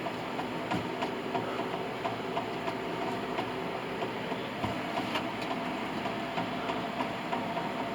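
A steady mechanical hum with faint irregular ticks and clicks.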